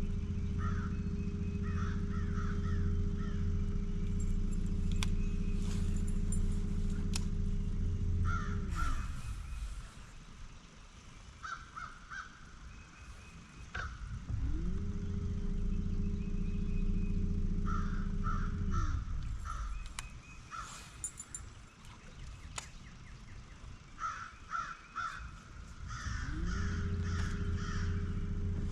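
Electric trolling motor humming in three separate runs, each winding up to a steady pitch and then winding down. Over it, crows caw repeatedly in short series.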